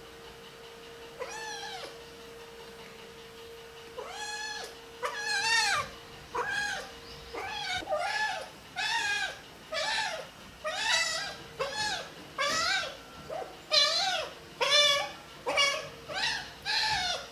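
Kitten meowing over and over in loud, insistent calls, about one a second after a single early call, protesting being bathed and cleaned.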